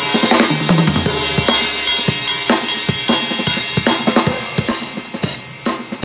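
Drum kit played fast with sticks: rapid snare and tom strokes with bass drum and cymbals. Two toms ring out, a higher one then a lower one, within the first second and a half.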